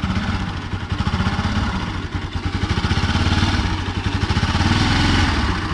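Bajaj Pulsar NS200 single-cylinder engine idling, with a steady rapid pulsing and an abnormal noise coming from the engine. A mechanic later traced the noise to a burnt stator.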